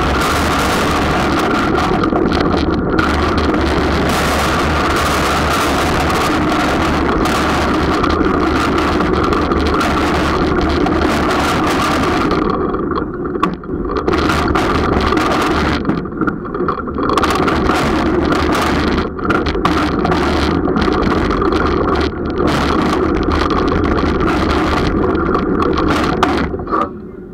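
Roller coaster train running along its steel track: a loud, steady rumble of the wheels mixed with wind rushing over the on-board microphone, becoming choppier about halfway through and dropping away near the end.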